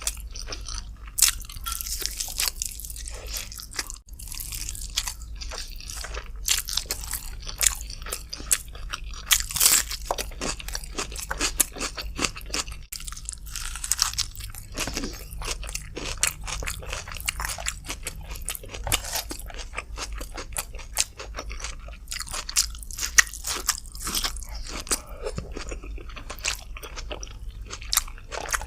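Close-up eating sounds of a person chewing and biting chicken with rice: a continuous run of wet chewing and sharp crunching clicks, with no pauses.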